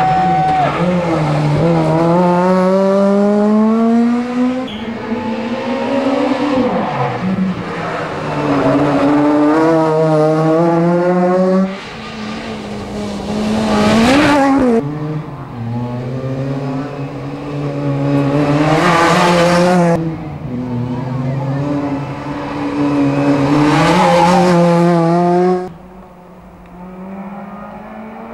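Honda Civic Type R rally car's four-cylinder engine driven hard, revving up and dropping in pitch at each gear change through several passes. Each close pass brings a rush of tyre and gravel noise.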